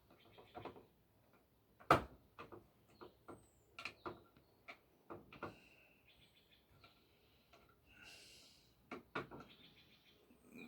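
Scattered faint clicks and knocks, the sharpest about two seconds in, with a few brief high chirps.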